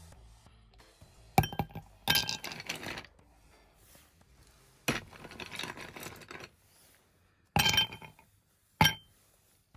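Ice cubes dropped into a stemless glass, clinking against the glass and each other: about five drops, some with a short rattle as the cubes settle.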